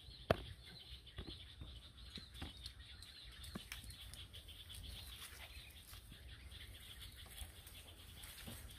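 Faint outdoor ambience: a steady high-pitched chirring runs throughout, with scattered light clicks and rustles and one sharp click shortly after the start.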